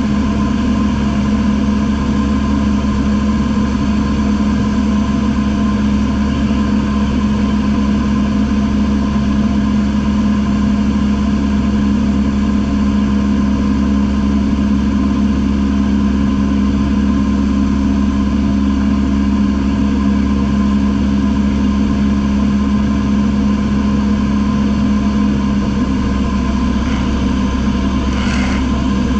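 Single-engine light aircraft's piston engine and propeller droning steadily at cruise power, heard from inside the cabin. A brief scratchy click sounds near the end.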